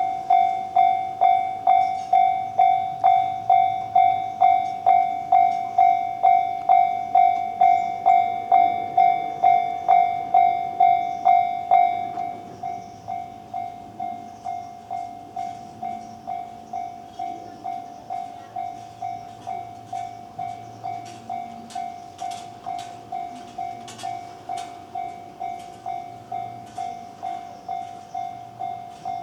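Level-crossing warning bell ringing about twice a second, a single clear tone that drops noticeably in volume about twelve seconds in and keeps ringing. Toward the end, a train's wheels click over the rails beneath the bell.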